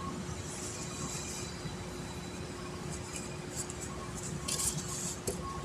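Steady workshop background hum, with a few brief faint scratchy sounds about three and a half to five seconds in.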